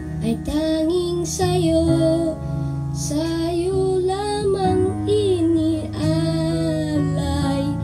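A boy singing a Tagalog song over instrumental accompaniment, holding long notes.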